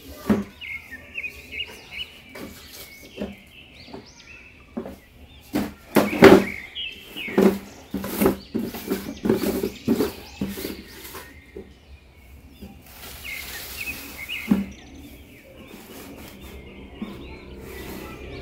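Cardboard toy boxes handled and set down on a floor: an irregular run of knocks, taps and cardboard scraping, loudest about six seconds in. Birds chirp faintly in the background.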